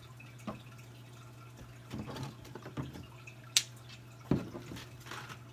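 A few scattered light taps and clicks from small objects being handled, with a sharp click a little past halfway and another soon after, over a steady low hum.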